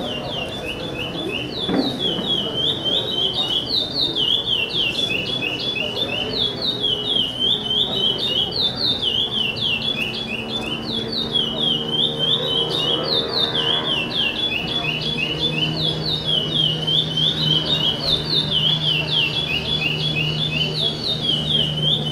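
Caged chopi blackbird (pássaro-preto, called 'preto charrua') singing without a break: a rapid string of short, down-slurred whistled notes, repeated phrase after phrase.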